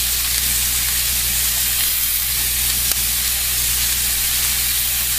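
Chunks of lightly oiled vegetables searing undisturbed in a smoking-hot pan, giving a steady sizzle as they char, over a low steady hum.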